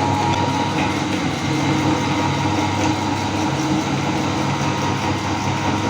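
Electric meat grinder's motor running steadily, with an even hum.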